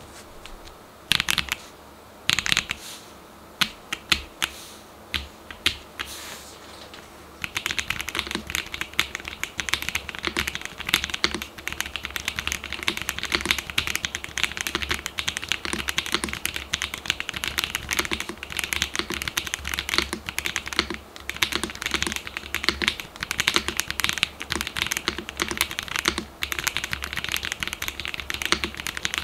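Typing on a gasket-mounted Cheap60ex mechanical keyboard: a few separate keystrokes at first, then fast, continuous typing from about seven seconds in.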